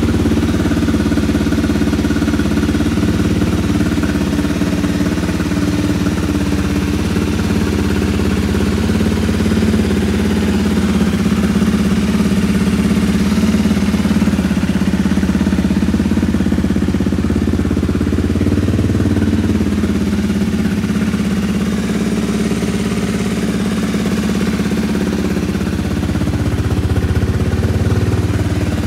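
Honda CRF250L's 250 cc single-cylinder engine idling steadily through its Yoshimura aftermarket exhaust.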